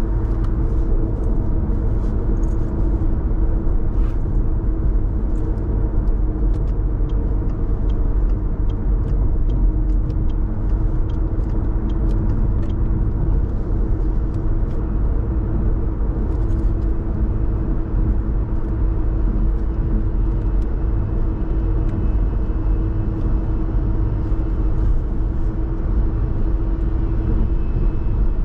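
A car driving, with a steady low rumble of road and engine noise and a constant hum. Scattered light ticks and clicks come through, most of them in the first half.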